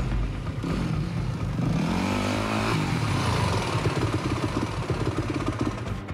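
Dirt bike engine running as the bike rides up. Its pitch rises about two seconds in, then drops back to a lower, uneven putter.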